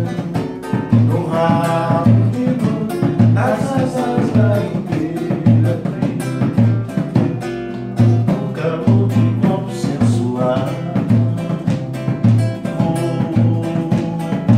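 A samba-enredo played on a nylon-string acoustic guitar and a tall wooden hand drum, in a steady even rhythm. A sung voice comes in at times.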